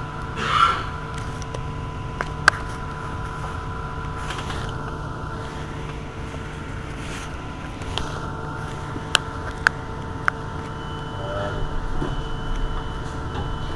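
Irizar i2e battery-electric bus standing at a stop: a steady hum with several steady tones, broken by a few sharp clicks, three of them in quick succession about two-thirds of the way through.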